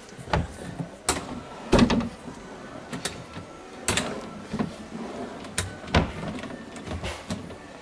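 A run of about ten hard knocks and clacks at irregular intervals, like objects being handled or bumped, the loudest about two seconds in.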